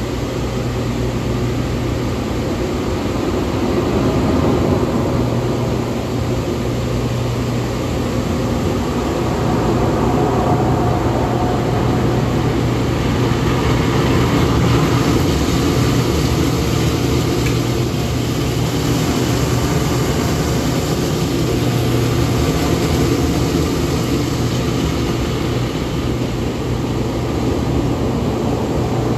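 Hydromassage bed running: a steady motor hum under the rushing of water jets beneath the mat, swelling and easing slowly.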